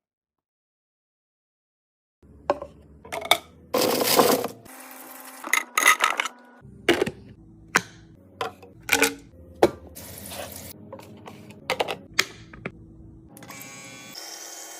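Containers and jars being handled and set down while a fridge is stocked: a string of sharp clinks and knocks, starting after about two seconds of dead silence.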